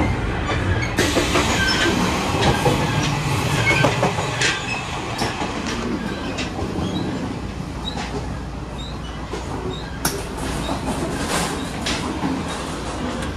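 Passenger train running on the rails: a steady low rumble with irregular clicks and knocks from the wheels over the track and brief high squeaks, easing slightly about halfway through.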